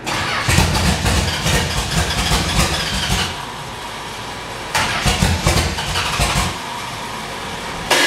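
Chrysler 440 big-block V8 with two four-barrel carburetors, revved by hand at the carburetor throttle linkage in two blasts, the first about three seconds long and the second about two, dropping back to idle between and after. Noisy.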